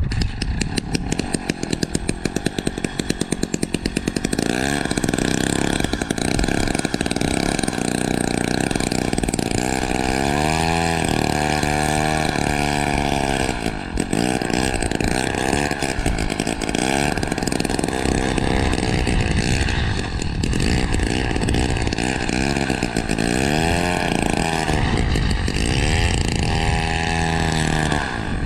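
Small two-stroke gas engine of a powered ice auger running and revving up and down repeatedly as it drills through the ice.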